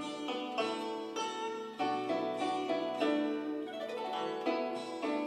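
Background music: plucked-string instrumental, a zither-like melody with regular note onsets.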